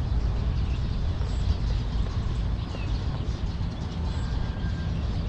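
Outdoor ambience dominated by a steady low rumble, with a few faint short high chirps.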